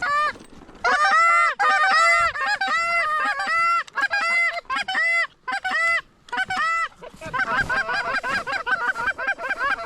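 Canada geese honking: a run of short, loud honks in quick succession starting about a second in, then from about seven seconds in many overlapping honks, as of several geese calling at once.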